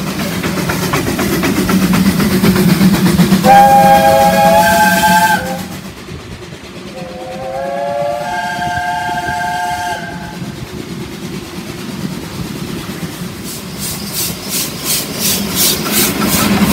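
Welsh Highland Railway Garratt steam locomotive sounding its whistle twice, a chord of several notes: a short blast about three and a half seconds in and a longer one of about three seconds shortly after. Under the whistle is the steady running of the working locomotive. Near the end there is an even beat of about three clicks a second as the train runs past.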